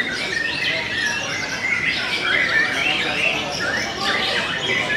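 Many caged white-rumped shamas (murai batu) singing at once: a dense chorus of overlapping rapid whistled phrases, with crowd voices underneath.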